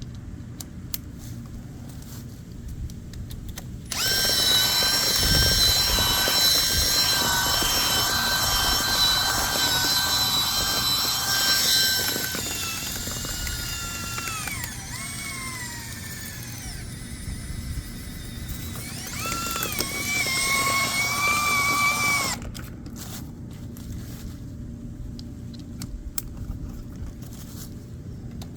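Power drill spinning a rotary dryer-vent cleaning brush: it starts about four seconds in with a steady whine, slows and drops in pitch partway through as the brush takes load, speeds back up, then stops suddenly. A low hum sits under it throughout.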